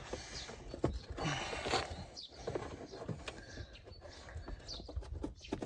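Scattered plastic clicks, knocks and scraping as a clip-removal tool works at a stubborn push-in plastic clip in a car's wheel-arch liner, the clip not coming out.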